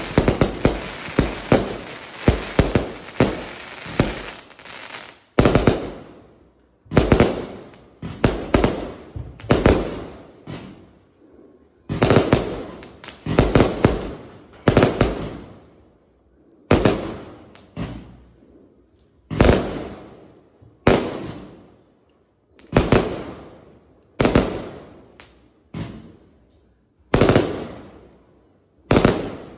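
A multi-shot consumer fireworks cake firing. For about the first five seconds the shots come in a rapid string. After that come separate loud bangs about every second or so, often two close together, each dying away.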